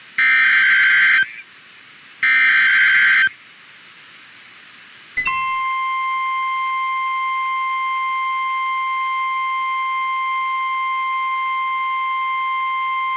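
Two buzzy bursts of a NOAA Weather Radio Emergency Alert System SAME header, each about a second long and a second apart. About five seconds in, the steady 1050 Hz warning alarm tone starts and holds on one pitch. This tone announces that a warning, here a severe thunderstorm warning, is about to be read.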